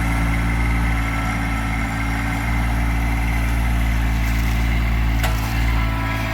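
Kubota LX2610 compact tractor's diesel engine running steadily, with a single sharp click about five seconds in.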